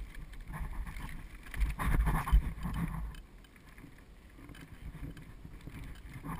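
Bicycle trailer rolling and rattling behind a bike, with wind rumbling on the microphone. About two seconds in there is a louder stretch of bumping and rattling as the wheels go from wooden bridge planks onto asphalt, then the rolling goes quieter and smoother.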